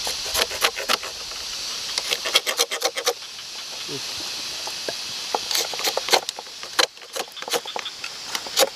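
A handheld fire starter struck in several short runs of quick, sharp scraping strokes to light a small bundle of tinder and dry leaves.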